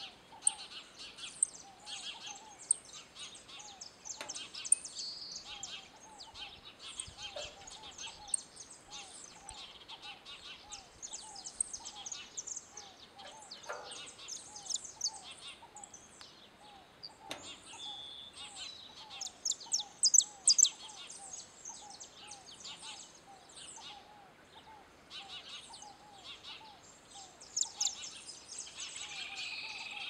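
Saffron finches chirping, many short high chirps one after another, with a lower note repeating a couple of times a second in the background. A few sharp clicks stand out, loudest about two-thirds of the way through.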